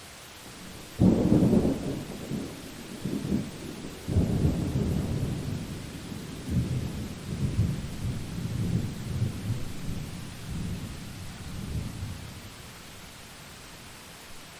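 A thunderclap breaking suddenly about a second in, then rolling and rumbling low, with a second surge about four seconds in, fading out after about twelve seconds, over a steady hiss of rain.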